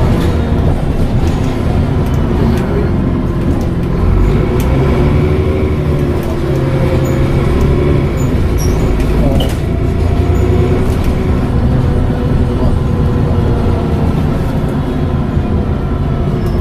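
Dennis Trident double-decker bus under way: a deep diesel drone with a whine from the turbocharger and Voith automatic gearbox that slowly rises and falls in pitch as the bus pulls and eases off, with occasional light rattles.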